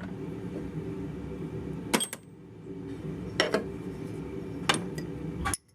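Ground steel machinist's parallels and blocks clinking against each other as they are handled and set down: about four sharp clinks over a steady low hum.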